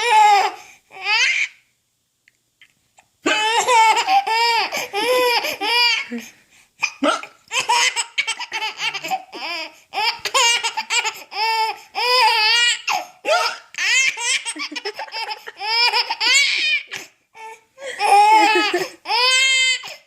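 A four-month-old baby laughing in repeated high-pitched bouts, with hiccups breaking into the laughter.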